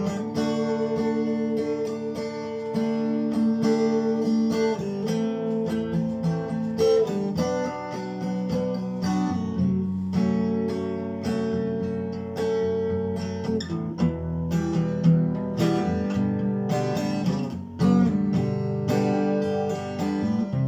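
Acoustic guitar playing a song's instrumental introduction, a run of strummed and plucked chords.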